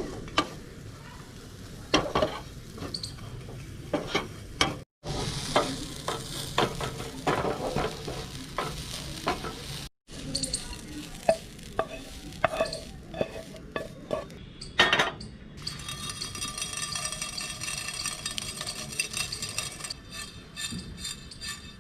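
Food sizzling in hot oil in a kadhai while a spatula stirs and scrapes against the pan in repeated sharp knocks.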